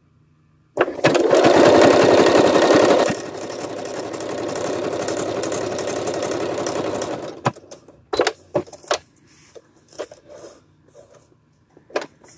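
Electric sewing machine stitching through fabric: it starts about a second in and runs fast and loud for about two seconds, then slower and quieter until it stops about seven seconds in. A few short clicks and knocks follow as the fabric is handled.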